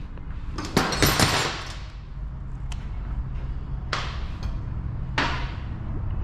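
Metal hand tools clinking and knocking on the motorcycle engine as a 17 mm socket is set onto the magneto nut: a brief rattling clatter about a second in, then a few sharp single knocks, over a steady low hum.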